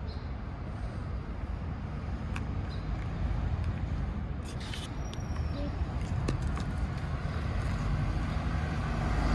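Low vehicle rumble that grows steadily louder, with a few short clicks.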